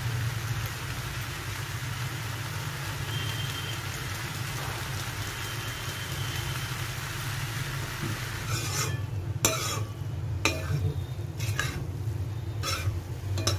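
Pasta in sauce sizzling in a metal pan on a gas stove, a steady hiss. From about eight seconds in, a steel spatula scrapes and knocks against the pan as the pasta is stirred.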